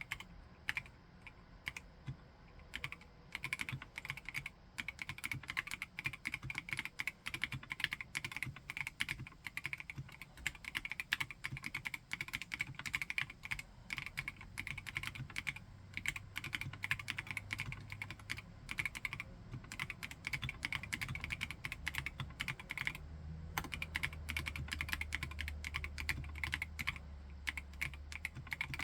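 Continuous fast typing on a HIBI June mechanical keyboard in a silicone housing, many keystroke clicks a second, with a short pause a little past the two-thirds mark.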